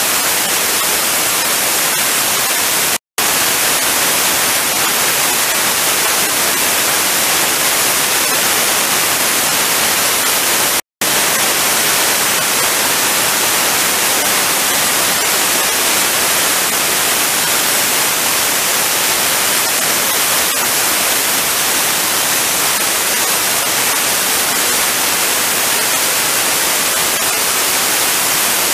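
HVOF (high-velocity oxy-fuel) thermal spray gun firing: a loud, steady hiss from its flame jet while it spray-coats the part. The sound drops out for a split second twice, about three and eleven seconds in.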